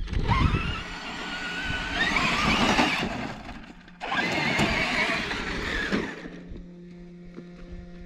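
Radio-controlled vehicle's electric motor whining as it is driven hard, in two runs: one of about three seconds, then after a short break another of about two seconds.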